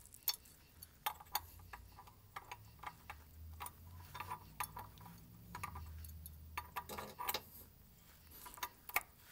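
Irregular sharp clicks and clinks of a wrench being fitted onto and worked on the oil filter housing cap, a few a second with short pauses.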